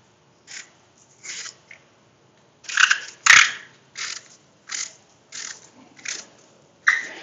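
Hand peeler shaving the skin off a small apple: a series of short crunchy strokes, a few at first and then about one every second, with the loudest crunch about three seconds in.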